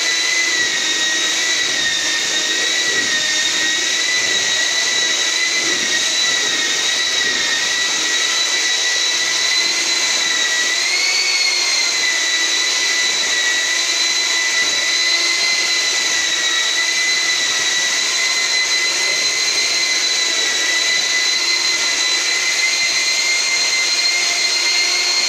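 Handheld electric paddle mixer running with a steady high whine as it stirs wet cement mortar. The pitch rises briefly about eleven seconds in.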